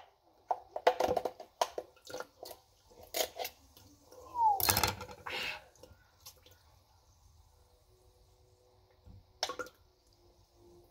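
Half-frozen Sprite being tipped and shaken out of a cut-open aluminium can into a plastic cup. Scattered clicks, scrapes and drips of slush and ice are heard, with a louder burst of slush and soda about four and a half seconds in.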